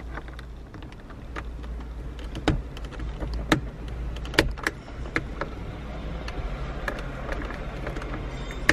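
Small plastic clicks and taps as a map light cover plate is handled and fitted into a car's overhead console, with a sharper click near the end as it is pressed in, over a steady low hum.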